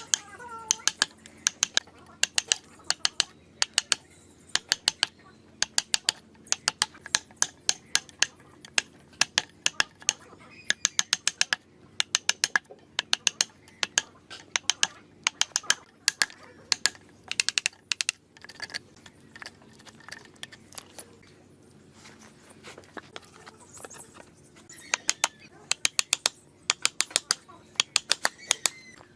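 Sharp knocks of a hand tool striking wood, coming in quick clusters of two to six strikes, with a new cluster roughly every second.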